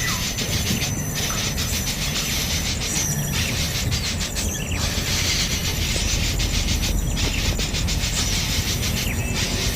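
Steady insect chorus, a dense fast-pulsing buzz high in pitch that drops out briefly about four times, over a low rumble.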